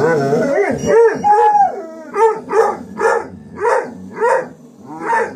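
Young Shar Pei mix dog howl-barking: a held howl about a second in, then a run of short rising-and-falling 'roo' barks about two a second.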